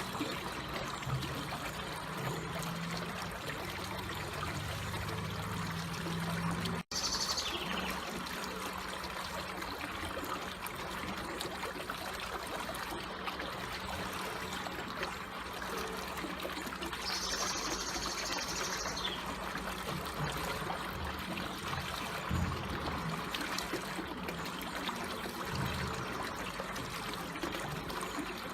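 Water trickling and flowing slowly and steadily, as in a small stream. The sound drops out for an instant about seven seconds in, and a short high-pitched call sounds twice, once just after the dropout and again, longer, a little past the middle.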